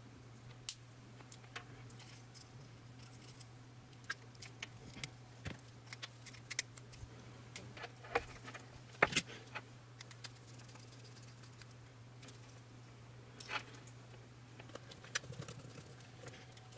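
Light clicks, taps and rustling of hands handling small wiring parts: wires, a lever-type wire connector and a plastic panel indicator lamp. The sharpest clicks come about nine seconds in, over a steady low hum.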